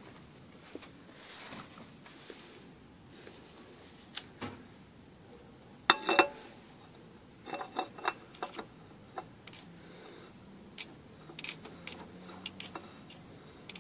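New spin-on oil filter being screwed by hand onto the engine's filter housing: scattered light metallic clicks, taps and scrapes, loudest in a short clatter about six seconds in.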